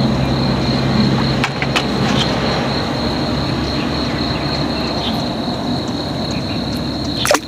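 A cricket trills continuously at a high, steady pitch over a steady low rumble of background noise. A few sharp clicks cut in, the loudest near the end.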